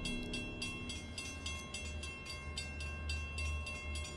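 Train passing along the platform: a low rumble with an even, rhythmic clatter of wheels over the rail joints.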